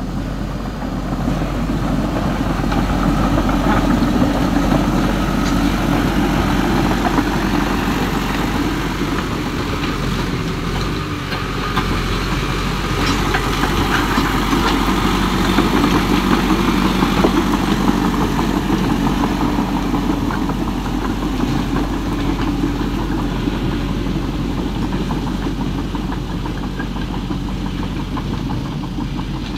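Huina remote-control bulldozer running as it pushes gravel: a steady mechanical hum from its electric drive and tracks, swelling and easing as it works.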